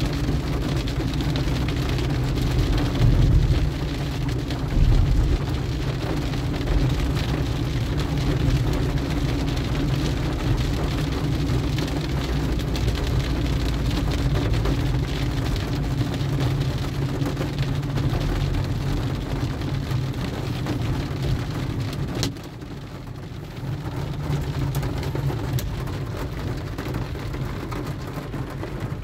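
Rain falling on a car, heard from inside the cabin while driving, over the low rumble of the engine and tyres on the wet road. The rumble drops off suddenly about three-quarters of the way through.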